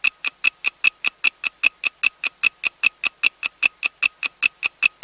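Clock-style ticking sound effect of an animated countdown: quick, evenly spaced sharp ticks, about five a second, at a steady level.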